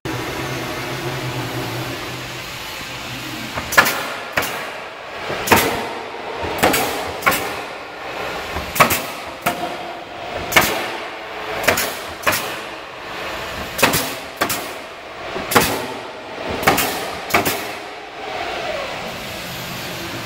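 Industrial robot at work on a window frame: sharp mechanical knocks, about one a second and often in quick pairs, each ringing briefly, over a steady machine hum that is heard alone for the first few seconds.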